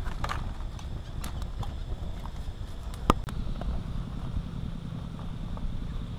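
Scattered small crackles and clicks over a steady low rumble of wind on the microphone, with one sharp snap about three seconds in.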